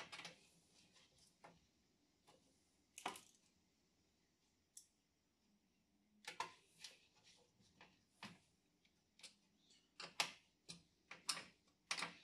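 Faint, irregular clicks and taps of TV backlight parts being handled and fitted back together. A few louder clicks come about three seconds in and near the end.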